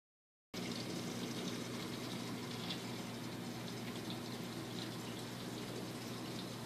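Running water in a saltwater aquarium: a steady trickle and splash of circulating water over a low, even pump hum, starting about half a second in.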